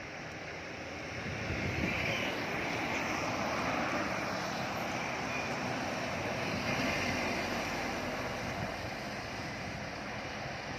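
A heavy road vehicle, truck or bus, passing with its engine and tyres running. The sound builds about a second in, holds through the middle and eases off near the end.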